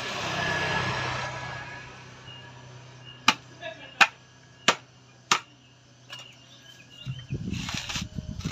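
A husked coconut's hard shell being struck four times, sharp knocks about two-thirds of a second apart, to crack it before peeling. A passing vehicle swells and fades in the first second or so, and near the end comes a rough scraping as the coconut is pressed and worked against the ground.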